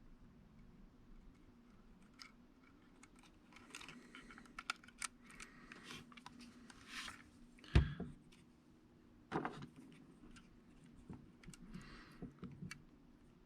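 Scattered light clicks and taps of small plastic drone parts and tools being handled while a gimbal ribbon-cable connector is lined up, with a sharper knock about eight seconds in and another a second and a half later.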